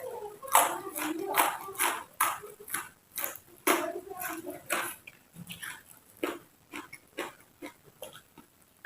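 Close-up crunchy chewing of raw vegetables: a run of sharp wet crunches, coming thick and fast in the first half and spacing out later, with a low voice-like hum under the early crunches.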